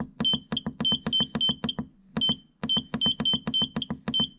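Short high beeps from a portable fridge-freezer's control panel as its button is pressed repeatedly to step the left compartment's set temperature down toward −18. About four beeps a second, each with a click, with a brief pause near the middle.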